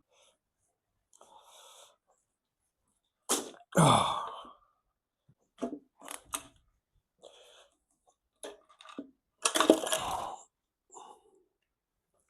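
Intermittent metal clunks and scrapes of cylinder head parts on a Mercedes M110 engine being handled during head removal. The loudest are a scraping clunk with a falling pitch about three and a half seconds in and a louder cluster of knocks about nine and a half seconds in, with lighter taps between.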